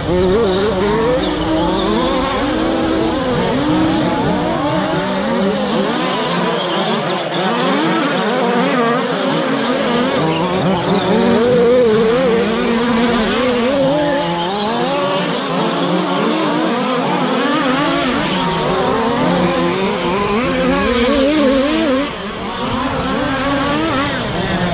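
Radio-controlled short-course trucks racing, their motors whining at many overlapping pitches that rise and fall as the trucks accelerate and brake around the track.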